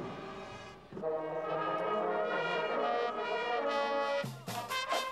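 Marching band brass, trumpets among them, playing held chords, then breaking into short punched notes with drum strokes about four seconds in.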